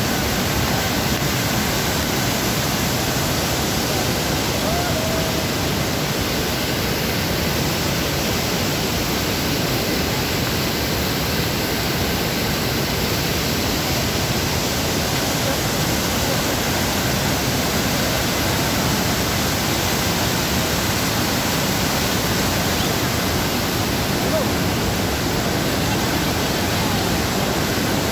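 Mountain stream rushing over boulders in white-water rapids and small cascades, a steady, unbroken rush of water.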